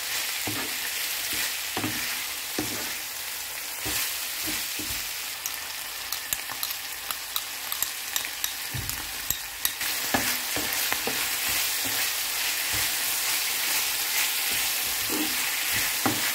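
Stir-fried chicken, shrimp and vegetables sizzling in hot oil in a frying pan as a wooden spatula tosses them, knocking against the pan every second or so. Sharp crackles pop through the sizzle between about five and ten seconds in.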